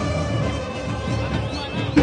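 Music playing, with steady held notes and a few short pitch glides near the end.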